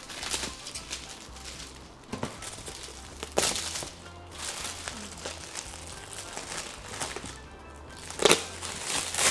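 Metallic foil gift wrap crinkling and tearing as a present is unwrapped by hand, in irregular bursts, the loudest a little past a third of the way in and shortly before the end.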